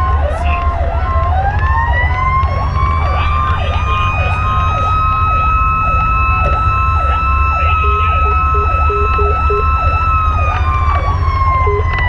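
Fire engine sirens heard from inside the cab. One siren yelps, dipping and rising about twice a second. A second siren climbs to a steady high wail about a second in and glides back down near the end. Under them runs a short repeating beep and the steady low rumble of the engine and road.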